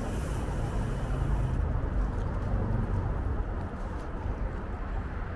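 Steady low rumble of city street traffic and road noise.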